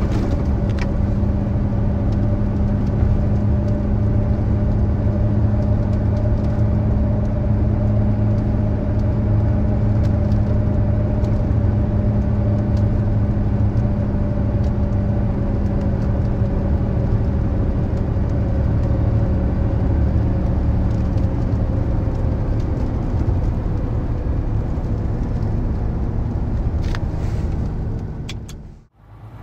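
Mercedes-Benz Actros truck heard from inside the cab while cruising on the highway: a steady engine drone with road rumble. It cuts off abruptly near the end.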